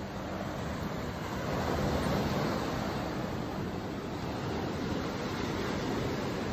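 Ocean surf washing onto the shore, a steady rush of breaking waves.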